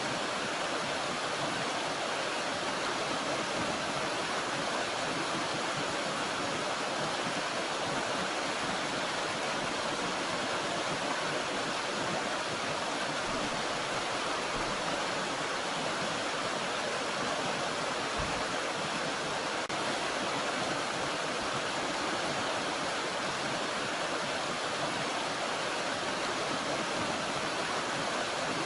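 Steady rushing of a small mountain stream: continuous, even water noise with no breaks.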